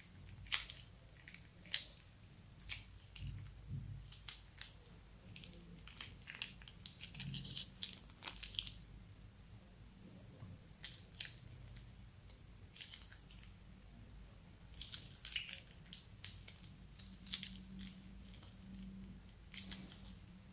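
Thick slime squeezed out of small plastic bags into a glass bowl: sticky squelches and many short, irregular crackles as the slime and air pockets push out through the bag's opening.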